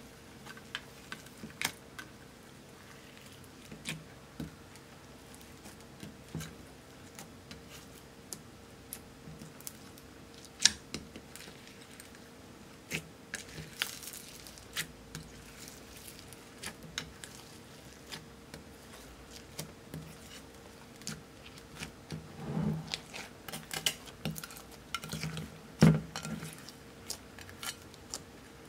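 Hands kneading and folding a large lump of clear slime in a glass dish: scattered sticky clicks and pops, with a few louder squelches near the end.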